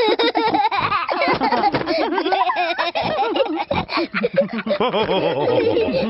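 Cartoon family of children and adults laughing together, several voices giggling and laughing at once without a break.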